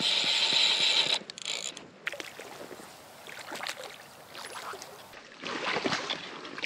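A fly reel's click drag buzzing rapidly for about the first second, then stopping. Later come scattered small splashes and then louder splashing near the end as a hooked trout thrashes at a landing net.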